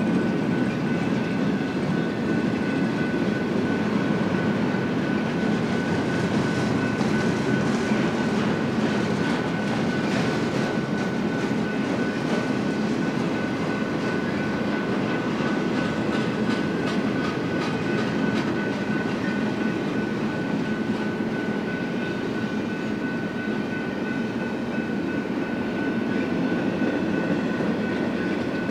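Double-stack intermodal container train rolling past at close range: a steady rumble of steel wheels on rail with a light rhythmic clicking of wheels over the rail joints, and a thin steady high tone over it.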